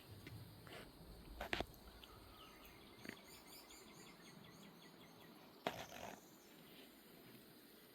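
Quiet outdoor evening ambience in which a bird gives a quick run of short high chirps, with two soft knocks, one before the chirps and one after.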